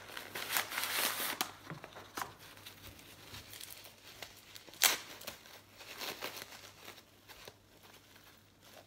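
Wrapping paper and tissue paper rustling, crinkling and tearing as a small gift is unwrapped by hand. The rustling is dense for the first second or so, then sparser, with one sharp click about five seconds in.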